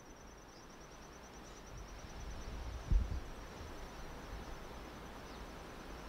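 Faint outdoor ambience: a low rumble with a faint, steady high-pitched tone over it, and one brief, soft low thump about three seconds in.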